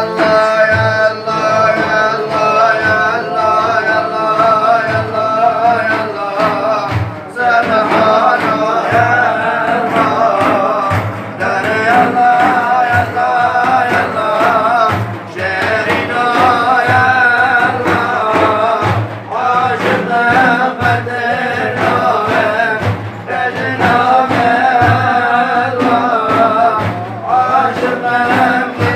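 Male voice singing a Sufi devotional chant (hadra ilahi) in long, wavering held lines over a steady, regular drum beat.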